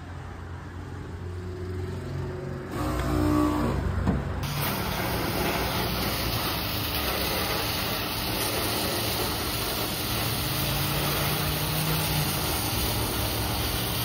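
An engine running steadily, joined about four seconds in by a sudden, steady loud rushing hiss that holds to the end.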